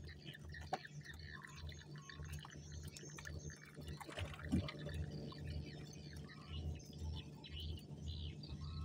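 Faint water sounds, dripping and sloshing, with a louder splash about four and a half seconds in, over a steady low hum that pulses about twice a second; faint bird chirps sound throughout.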